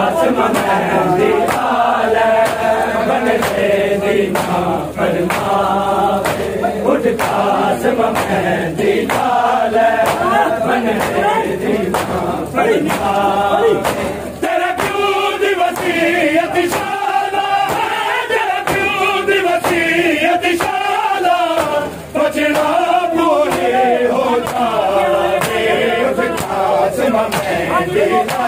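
A group of men chanting a noha, a Shia mourning lament, in unison. Matam, hands striking chests, keeps a steady beat under the chant.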